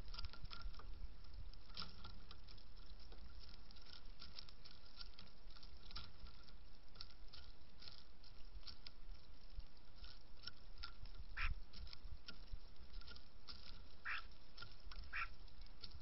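Mourning doves pecking at hulled sunflower seeds in a wooden platform feeder: many small, irregular taps and clicks. A few short bird chirps come in the second half, over a low steady rumble.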